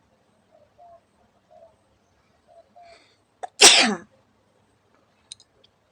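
A woman's single loud sneeze about three and a half seconds in, led by a quick sharp intake and falling in pitch as it ends. It is one of a run of sneezes she is deliberately provoking.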